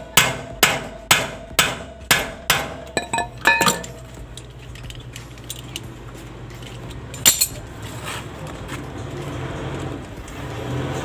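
Hammer blows on the steel hub of a trike's sidecar wheel, at about two a second with a metallic ring, during a wheel bearing replacement. They break into a few quicker, lighter knocks, and there is one more sharp blow some seconds later.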